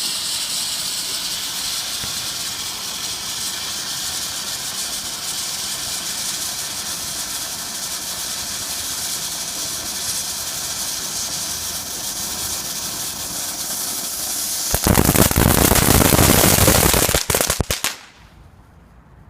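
Ground firework fountain burning with a steady hiss, then about fifteen seconds in a much louder, rougher crackling burst for some three seconds that cuts off abruptly.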